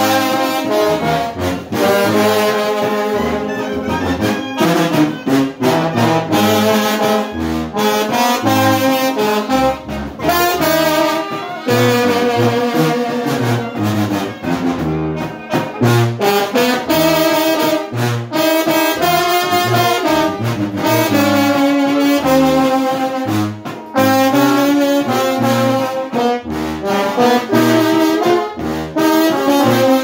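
Mexican banda (brass band) playing a tune together: sousaphones, trombones, tenor horn and clarinet over a snare drum and bass drum striking throughout.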